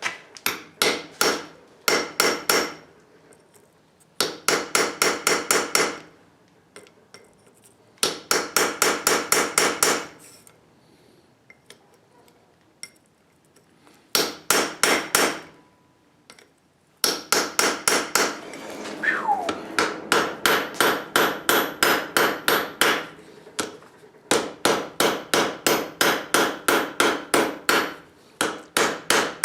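Blacksmith's hammer striking hot steel on an anvil while forging a bottle opener. The blows come in runs of several seconds, about four a second, with short pauses between runs, and each blow rings.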